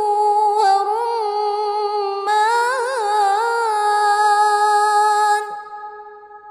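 A woman reciting the Quran in melodic tajweed style, drawing out one long held note with ornamented turns in the middle. The note fades away in a long echo about five and a half seconds in.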